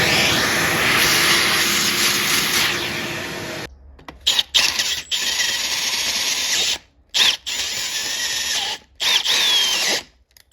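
Power drill boring out the stripped threaded plug bore in a transmission case, running steadily for the first few seconds, then in a series of short on-off trigger bursts.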